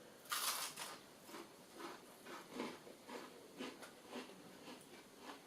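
Soft, faint mouth sounds of a person chewing a bite of cold vegan mozzarella, irregular and about twice a second, after a short breathy noise about half a second in.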